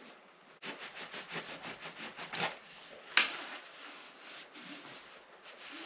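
Rapid back-and-forth rubbing over the thick fabric of chainsaw protective trousers, about five strokes a second, with one louder scrape about three seconds in, as a heat-bonded repair patch is pressed into place.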